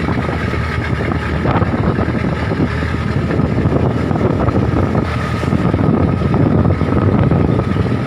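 Engine of a traditional wooden trawl fishing boat running steadily under way, with waves rushing and splashing against the hull.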